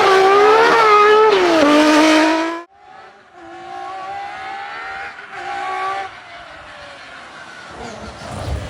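Lancia Stratos's 2.4-litre Dino V6 running hard, its pitch rising and dropping as it revs. About two and a half seconds in it cuts abruptly to a quieter, steadier engine note.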